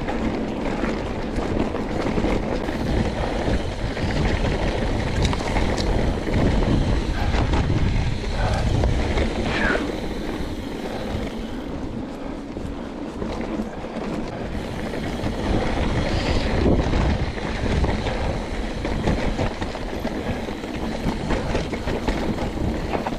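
Wind rushing over a GoPro's microphone as a Trek Remedy mountain bike rolls along a dirt and rock singletrack, with tyre noise and frequent small clicks and rattles from the bike over rough ground.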